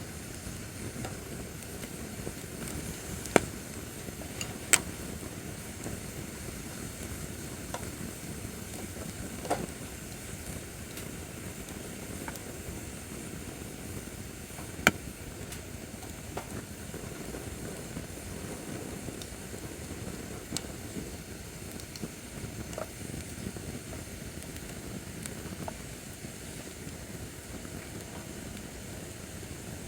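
Acacia firewood burning in a fire pit stand: a steady low rumble of flames with sharp crackles and pops at irregular intervals, the loudest a few seconds in and about a quarter of the way through.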